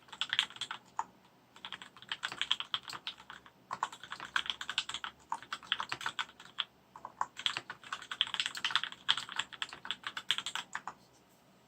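Typing on a 60% mechanical keyboard with Gateron Clear linear switches on 62 g springs and JT black keycaps: quick runs of key clacks broken by brief pauses, stopping shortly before the end.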